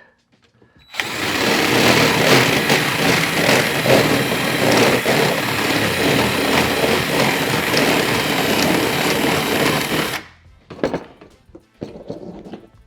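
A small power tool running steadily for about nine seconds, starting about a second in and cutting off abruptly.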